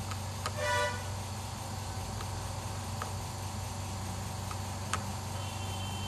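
A steady low hum, with one short horn-like toot about half a second in and a few light clicks after it.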